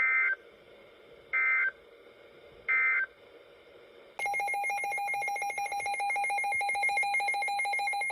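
Three short bursts of EAS digital data tones, evenly spaced, the end-of-message code that closes an alert. About four seconds in, a louder, rapidly pulsing electronic alert tone starts and sounds steadily.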